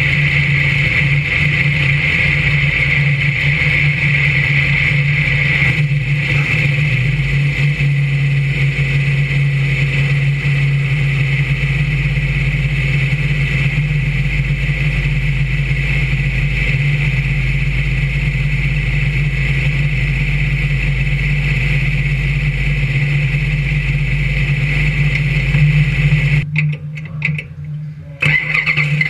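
Brisca F1 stock car's V8 engine idling steadily. Near the end it briefly gets louder, then drops and cuts in and out for a second or two.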